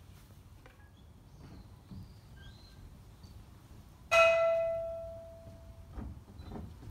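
A Buddhist altar bell (rin) struck once about four seconds in, ringing with a clear tone and fading over about two seconds. A few soft knocks follow near the end.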